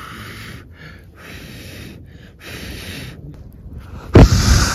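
A person blowing on a campfire in four puffs about a second apart; the fire has caught but needs blowing again and again to keep burning. The last puff, near the end, is the loudest, with a low rumble.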